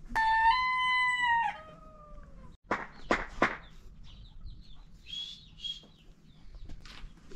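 A rooster crowing once: a single call of about two seconds at the start that drops in pitch as it ends. A few short sharp sounds follow about three seconds in, then faint high chirps.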